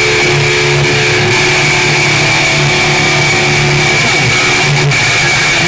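Loud, heavily distorted electric guitar played through a stage PA during a band's sound check, a thick wall of sound with a steady high ringing tone over shifting low notes.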